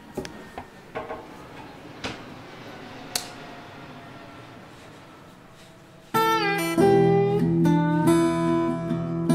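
A few light knocks and clicks from glass sheets being handled. About six seconds in, plucked acoustic guitar music starts and becomes the loudest sound.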